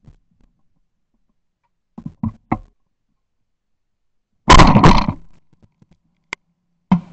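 Shotgun firing once at a clay target about four and a half seconds in, very loud and close, its report dying away over most of a second. A few fainter sharp cracks come about two seconds in, and a short crack comes just before the end.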